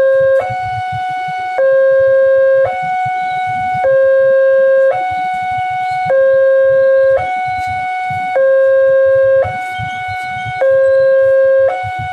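Railway level-crossing warning alarm sounding its two-tone signal: a lower and a higher tone alternate about every second, the higher one louder, warning that a train is approaching.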